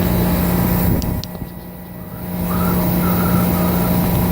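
Steady low mechanical hum over a rumble, dipping in level about a second in and coming back up.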